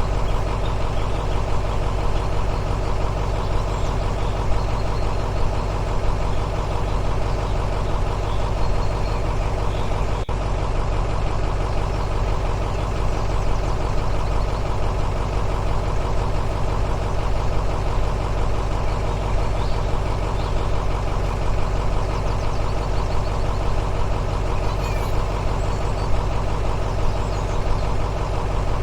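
Heavy diesel engine idling steadily, the kind of engine sound an RC construction model plays, with one short click about ten seconds in.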